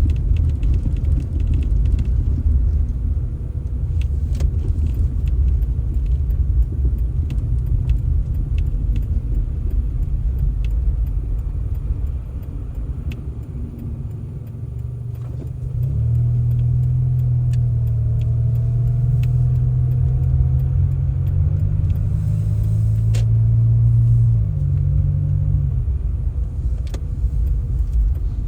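Motor vehicle sound: a constant low rumble with scattered small clicks. A steady engine drone joins it about halfway through and drops away near the end.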